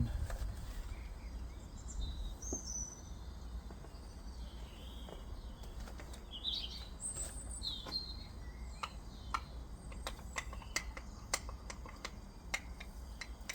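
Small birds chirping in the background, with light clicks and taps of a spoon stirring a cornflour-and-water mix; the taps come thicker in the last few seconds.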